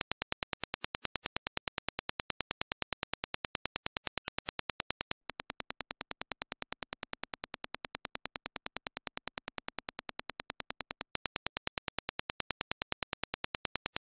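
Impulse test signal: an even train of sharp clicks, about seven a second. The reference Dirac impulse clicks change after a brief break about five seconds in to the same click train reproduced by Sony MDR-7506 headphones and picked up by a dummy-head measurement microphone, slightly quieter. The reference clicks return about eleven seconds in.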